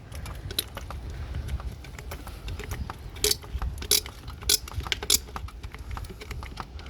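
Hand gear-oil pump being worked to fill a Honda 9.9 outboard's gearbox: a run of sharp plastic clicks and clacks, the strongest coming regularly about every half second through the middle, over a low rumble.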